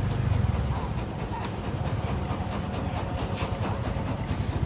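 A low, steady engine rumble, with scattered light clicks and knocks over it.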